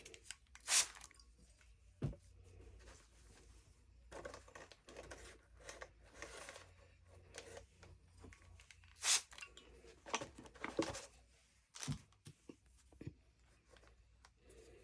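Rustling and crinkling as the felt and fabric layers of a microwave flower press and the dried, pressed flowers are handled. There are two sharp clicks and two dull knocks among the rustling.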